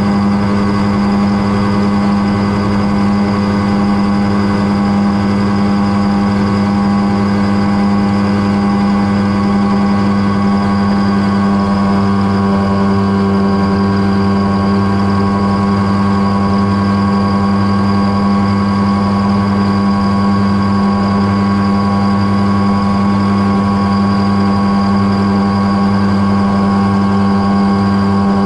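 Mosquito XE285 ultralight helicopter running steadily on the ground, its engine and turning rotor holding one constant speed with a strong steady hum.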